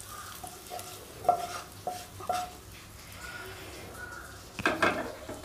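Fried onion masala being scraped out of a metal kadai into a steel bowl: a series of short ringing metal taps and scrapes, with a longer, louder scrape near the end.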